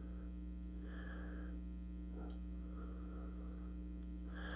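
Steady low electrical mains hum, with faint soft handling rustles and one light click about two seconds in as a plastic action figure is turned over and examined.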